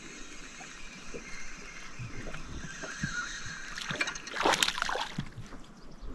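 Water sloshing and splashing, with scattered small knocks and a louder burst of splashing about four and a half seconds in.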